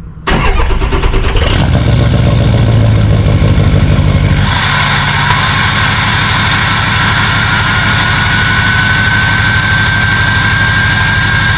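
Diesel truck engine starting up suddenly and then running loud through its aftermarket exhaust, without the stock muffler fitted. From about four and a half seconds a high whistle rises slowly over the engine note.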